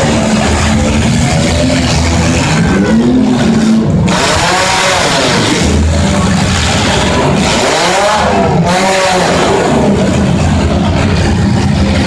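Several demolition derby car engines revving up and down at once, loud and continuous, their pitches rising and falling over one another.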